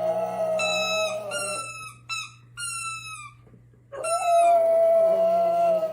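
A dog howling: one long, held howl, a few shorter howls that drop in pitch at their ends, then another long howl near the end. A steady low hum runs underneath.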